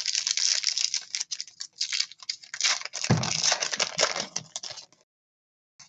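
A trading card pack being opened by hand: the foil wrapper crinkling and tearing, with the cards rustling, for about five seconds before it cuts off suddenly.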